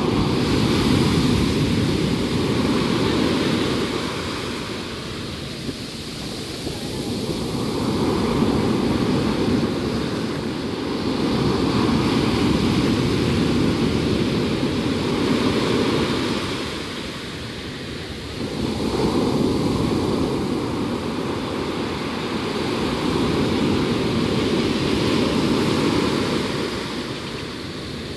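Sea surf: waves breaking and foam washing up a sandy beach. The rush of water swells and eases in repeated surges every few seconds.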